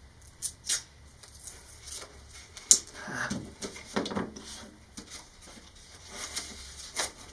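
Masking tape being pulled off its roll and torn, with paper rustling and small sharp clicks as hands handle a paper strip on a cardboard model-rocket body tube; the loudest click comes nearly three seconds in.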